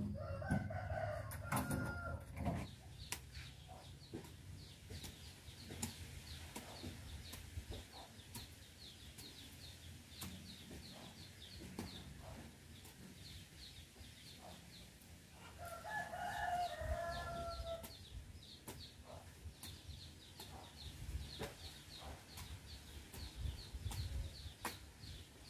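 A rooster crowing twice, once at the start and again about two-thirds of the way through, each crow lasting a couple of seconds. In between come the scattered dull strikes of a hoe chopping into soil, with steady high chirping behind.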